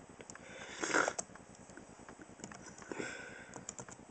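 Scattered, light key taps on a laptop keyboard, with two short breath sounds at the microphone, about a second in and near three seconds.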